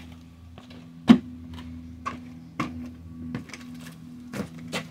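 Shoe stepping onto a small wooden pallet-board ramp: a series of knocks and thuds from the boards, the loudest about a second in and two quick ones near the end, over a steady low hum.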